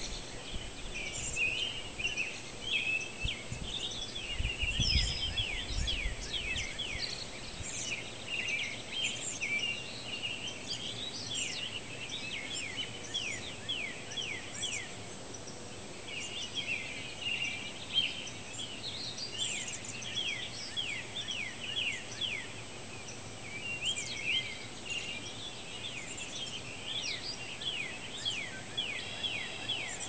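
Dawn chorus: many birds singing at once before sunrise, a dense, continuous run of quick, high, downward-sweeping chirps and trills. Some low rumbling on the microphone in the first six seconds.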